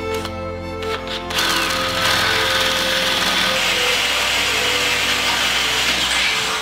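Cordless drill boring through a steel frame rail with a twist bit: a few short spurts in the first second, then steady drilling from about a second and a half in that stops abruptly at the end.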